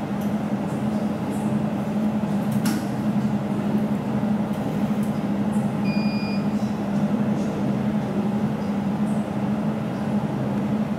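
Jewelry laser welder running with a steady low hum during start-up. There is a single click about three seconds in, and a short high beep about six seconds in as the flash lamp is triggered.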